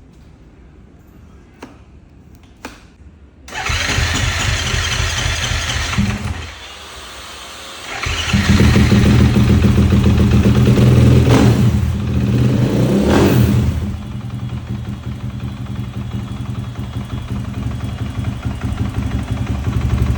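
KTM 500 EXC-F single-cylinder four-stroke engine being started after a rebuild. After a couple of light clicks it catches, falls back, then fires up properly about eight seconds in. It is revved twice and settles to a steady fast idle.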